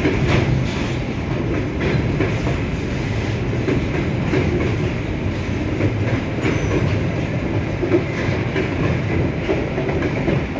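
Freight wagons of a chemical train rolling past at close range: a steady rumble of steel wheels on rail, with repeated clickety-clack as the wheels cross rail joints.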